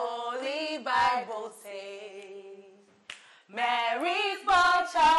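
Two women singing a Christmas song a cappella, with long held notes and a short break about three seconds in.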